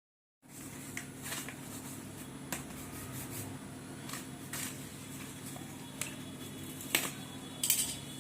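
Parcel packaging being handled and opened by hand: scattered crinkles and clicks, the loudest about seven seconds in and again just before the end, over a steady low hum.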